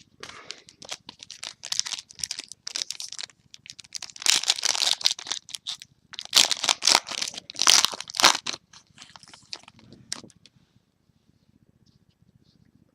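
Trading-card pack wrapper being torn open and crinkled, in rustling bursts for about ten seconds, then stopping.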